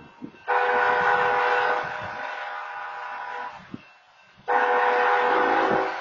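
A railroad crossing's stationary wayside horn sounds two long blasts of a multi-note horn chord, warning road traffic of an approaching train. Each blast is loud for over a second and then carries on softer, with a pause of about a second between them.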